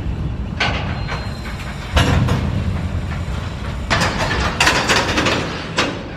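Freight cars banging together in a rail yard: a series of sharp metal clanks, several in quick succession near the end, over a steady low rumble.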